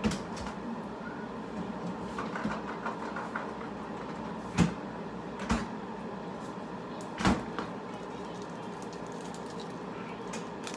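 Refrigerator door opened and things handled inside it: four sharp knocks and clunks spread over several seconds, with a few faint taps between them.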